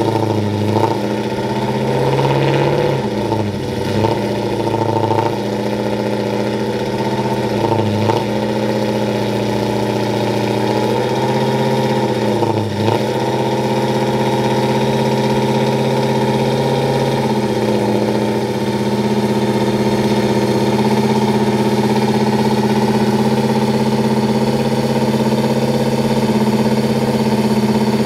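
Supercharged Ram 1500 pickup's V8 running on a chassis dyno at a steady, moderate speed, dipping briefly in engine speed three times in the first dozen seconds and then holding an even drone.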